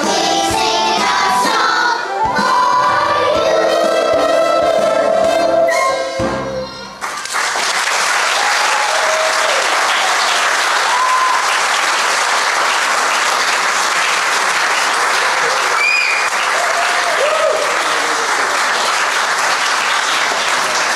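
A children's chorus sings over a backing track, which cuts off about seven seconds in. The audience then breaks into long applause with scattered cheers.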